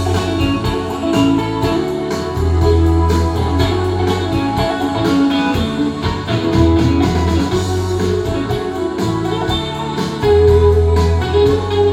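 Recorded music played back over loudspeakers: an instrumental passage with guitar over a steady bass line, no singing.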